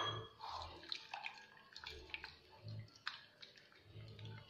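A hand mixing spice powder and water into a thin masala batter in a bowl: faint, irregular wet sloshing and squelching with small scattered clicks.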